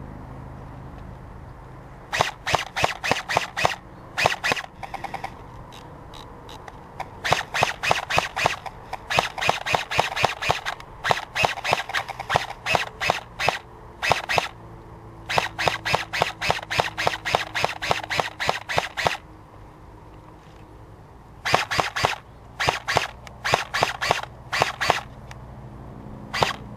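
Airsoft rifle firing strings of rapid shots, about five a second, in a dozen bursts separated by short pauses.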